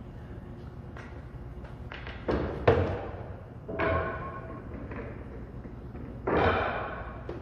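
Pool balls knocking together: a few sharp clacks, one with a brief ringing tail, then a longer clattering rattle about six seconds in.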